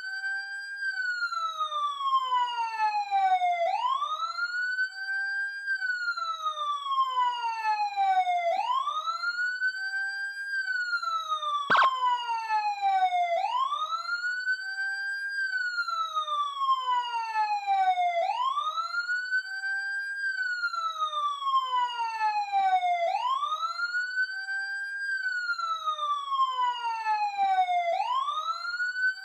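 Police siren sounding a wail: the pitch rises quickly, holds briefly at the top, then falls slowly, repeating about every five seconds. A single sharp click is heard about halfway through.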